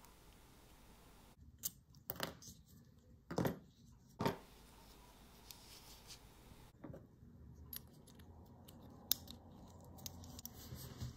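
Small metallic clicks and light scrapes as a small brass watch part and a knurled brass pin vise are handled in finger-cotted fingers. A few sharper clicks come in the first half, then lighter, sparser ticks.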